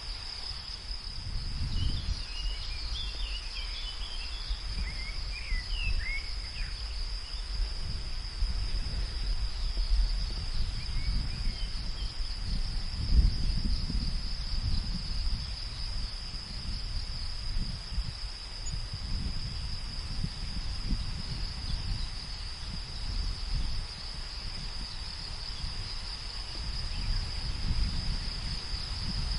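Steady high-pitched insect chorus running without a break, over a low rumble that swells and fades. A few short chirps come through in the first several seconds and once more near the middle.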